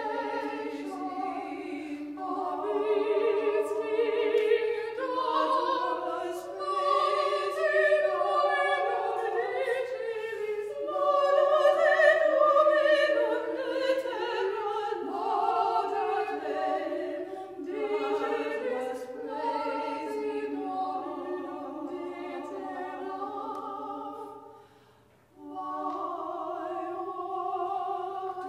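A choir singing a slow sacred piece in held, overlapping chords. The singing breaks off briefly about 25 seconds in, then resumes.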